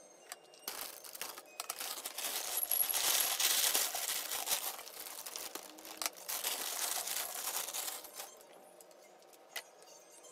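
Dry whole-grain cereal flakes poured onto a ceramic plate: a dense crackling patter of small pieces landing, in two pours with a short break between, stopping about eight seconds in. A single light click follows near the end.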